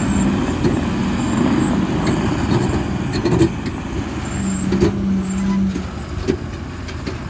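Heavy diesel machinery running steadily, with a few sharp knocks in the middle.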